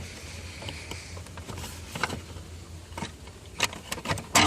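Plastic steering column cover being pried off a 1998 VW Jetta's column: scattered clicks and knocks as its clips let go, with a louder clatter near the end, over a steady low hum.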